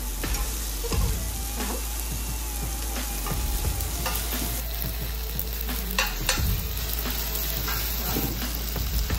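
Food sizzling on a hot tabletop griddle while metal spatulas scrape, tap and chop through kimchi fried rice as it is stir-fried, many short clicks over a steady hiss.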